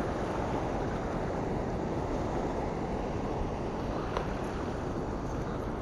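Steady rush of churning water below a dam, mixed with wind on the microphone; a single light click about four seconds in.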